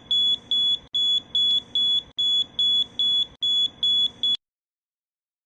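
Smoke and carbon monoxide alarm's built-in siren sounding its alert: a loud, high-pitched beep repeated in quick groups of three, about one group a second, cutting off suddenly about four seconds in.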